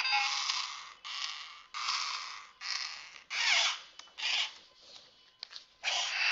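Silverlit Program A Bot toy robot's small geared motors whirring in repeated short bursts as it moves its arms and body, about eight bursts with brief pauses and a few clicks between them.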